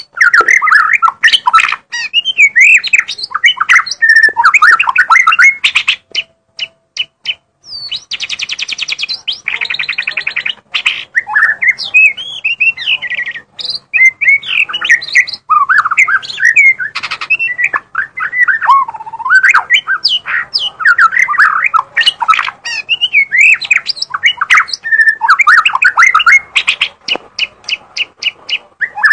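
White-rumped shama (murai batu) singing loudly and almost without a break: a varied song of sweeping whistled phrases and sharp clicks, with a short lull about six seconds in followed by a fast rattling trill.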